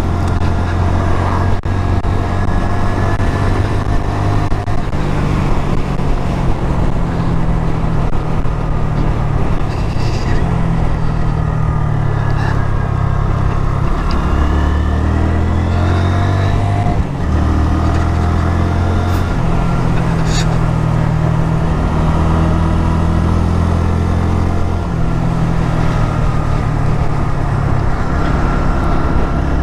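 Honda MSX125SF's 125cc single-cylinder four-stroke engine running at cruising speed, heard from the rider's seat. About halfway through, the engine note drops as the bike slows for a bend, then climbs again with a step in pitch, and steps once more near the end.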